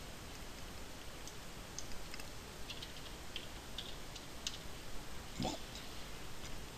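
Scattered light clicks of a computer mouse and keyboard over a faint hiss, with one duller knock about five and a half seconds in.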